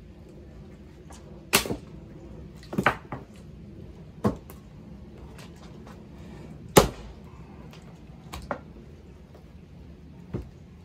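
Hardwood firewood being split by hand: six sharp knocks of a splitting blade or split pieces hitting wood, irregularly spaced, the loudest about seven seconds in, a couple followed closely by a smaller second knock.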